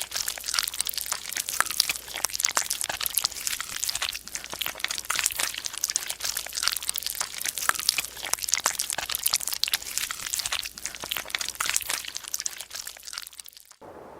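Dense, continuous crunching and crackling that cuts off suddenly near the end.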